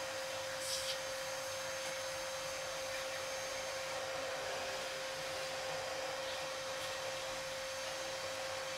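Vacuum cleaner running steadily with a constant whine, its narrow nozzle drawn over the mesh dust filter of a PC case's front panel to suck off the dust.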